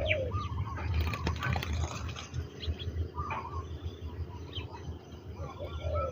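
Spotted doves cooing, with a short coo at the start and another near the end, over the chirps of small birds and a steady low rumble.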